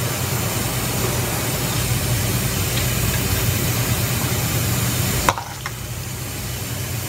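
A metal ladle scooping and pouring broth over bread in a stainless steel pot, over a steady kitchen hiss with a low hum. About five seconds in there is one sharp metal clink, after which the hiss drops.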